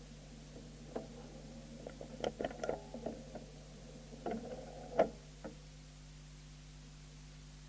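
Steady low electrical hum with a scattering of faint clicks and knocks, bunched between about one and five and a half seconds in.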